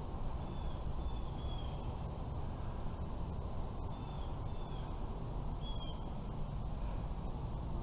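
A bird chirping several times in short, high notes, in small groups of two or three, over a steady low rumble of outdoor noise.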